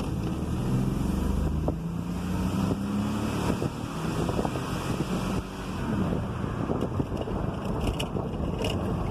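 Ford 3.5-litre V6 pickup engine pulling under acceleration on a road test, its note climbing between about one and three seconds in, over road and wind noise. The engine is misfiring under load, on cylinders 3 and 6.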